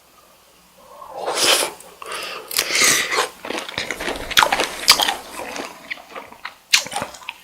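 Close-miked chewing of cooked cocktail shrimp: wet, smacking mouth sounds with many sharp clicks, starting about a second in.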